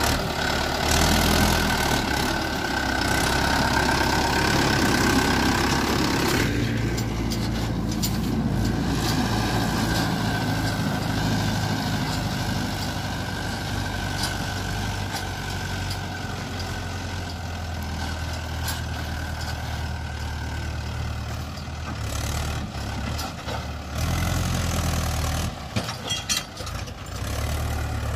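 Mahindra farm tractor's diesel engine running steadily under load while pulling a loaded trolley over a rough dirt track. The sound turns duller about six seconds in, as the tractor moves away.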